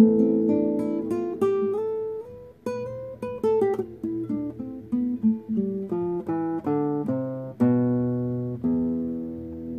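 Classical guitar played fingerstyle, improvising a melody in single plucked notes, with a quick run about three seconds in, then slower notes and two chords near the end left ringing out.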